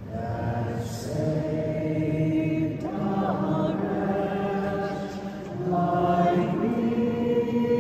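Choral singing in long, slow held notes that move to a new pitch every second or two, chant-like. It grows a little louder near the end.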